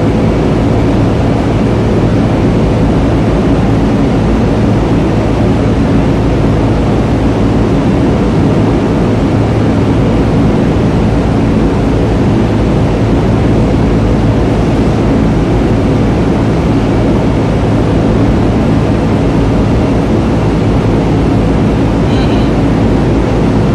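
Heavy industrial machinery running: a loud, steady drone with a low hum and several steady tones that does not change.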